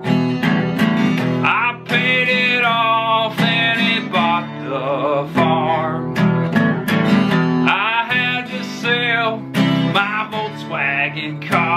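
A man singing held, wavering notes over a strummed acoustic guitar.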